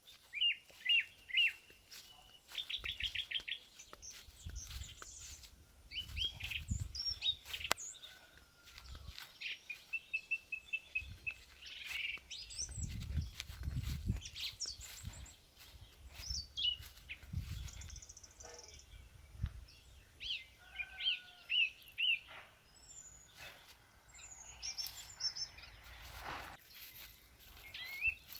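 Several birds chirping and calling, with short high notes and quick trills of repeated notes throughout. Low rumbles come and go underneath a few times.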